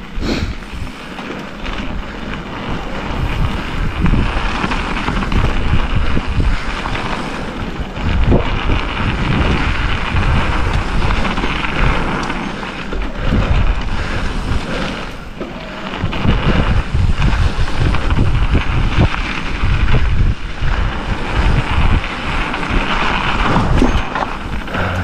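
Wind buffeting an action camera's microphone on a mountain bike riding fast downhill, with a rumble and rattle from the tyres rolling over a gravel trail; it rises and falls with the speed of the ride.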